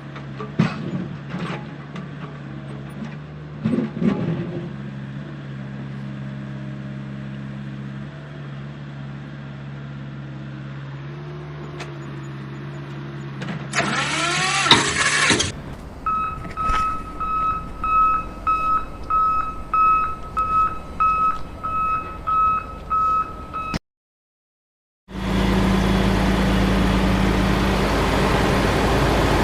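Battery-powered toy construction vehicle: a steady motor hum with a few clicks, then a short burst of noise, then a regular electronic reversing-style beeping, about one and a half beeps a second, for around eight seconds. The beeping cuts off abruptly, and after a moment of silence a steady noisy sound begins.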